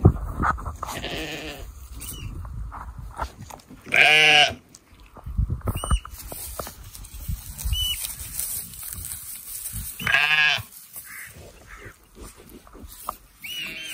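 Young lambs bleating, two loud wavering bleats about 4 and 10 seconds in. Between them, low rustling and knocks close to the microphone, with a few short high chirps.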